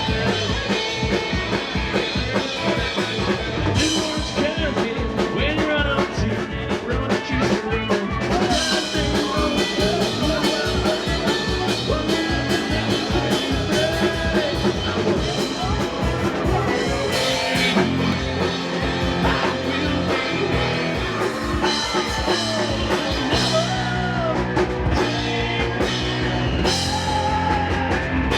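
Rock music with drum kit, guitar and singing.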